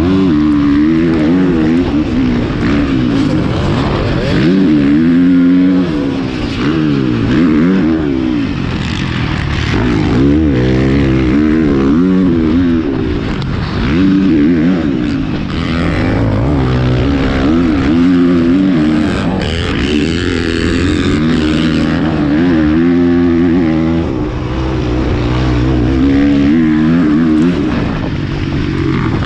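Husqvarna FC450's single-cylinder four-stroke motocross engine revving up hard and backing off over and over, its pitch climbing and falling every few seconds as the rider works the throttle and gears around the track.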